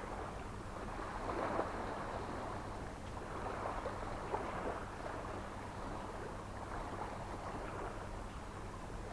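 Small sea waves washing onto a sandy, rocky shore, swelling and falling back every couple of seconds.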